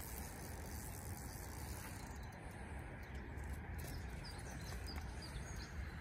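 Wind rumbling steadily on the microphone, with faint, short, high bird chirps now and then in the second half.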